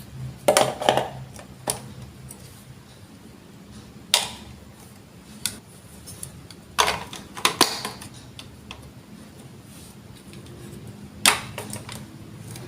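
Hard plastic Lego Duplo blocks being handled and pressed together, a few sharp clicks and clacks at a time, several times, with gaps between.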